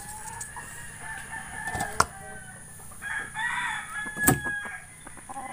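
A rooster crowing once, about three seconds in, with two sharp knocks about two seconds in and a little after four seconds.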